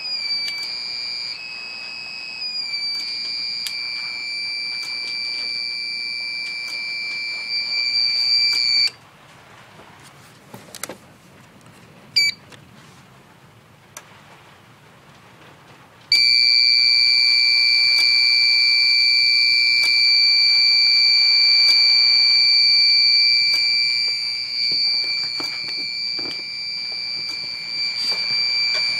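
A UPS's alarm buzzer sounding one continuous high-pitched tone, wavering slightly in pitch at first. It cuts off about nine seconds in, chirps briefly around twelve seconds, then comes back louder from about sixteen seconds on. This is the malfunctioning UPS alarming on emergency power, which the owner takes for a lack of power.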